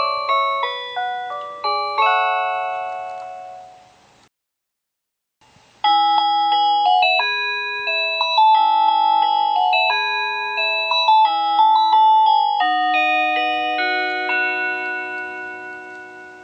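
Japanese express train onboard announcement chimes, the electronic bell-like melodies played before an announcement. One chime melody fades out about four seconds in. After a second of silence, a second, longer chime melody of decaying bell notes plays and dies away near the end.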